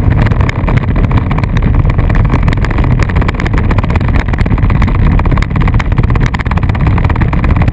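Loud, steady rumble and rattle of a Power Wheels Mustang toy car being towed at speed over asphalt, its hard plastic wheels and body shaking.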